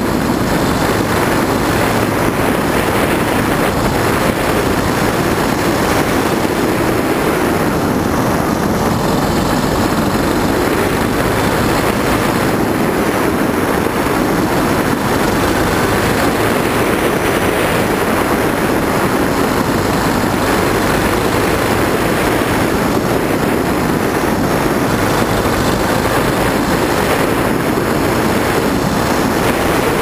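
Suzuki DR650's single-cylinder four-stroke engine running at a steady cruise along a gravel road, its sound mixed with the rush of wind and tyre noise on the bike-mounted microphone.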